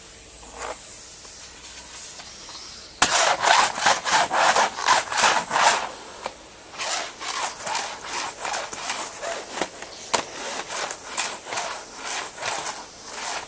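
Rhythmic scraping and rustling of dry leaves, about two strokes a second, starting about three seconds in: a Henry vacuum cleaner's floor tool worked back and forth over the yard, sucking up leaves.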